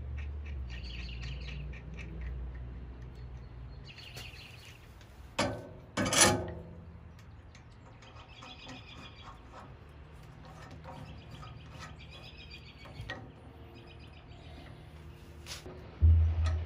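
Metal hand-tool work on a leveling caster being fitted to a steel stand leg: two sharp knocks about five and six seconds in, and a heavy clunk near the end. Birds chirp on and off in the background.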